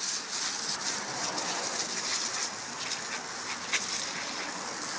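Garden hose spraying water in a steady hiss, with pattering and a few light clicks.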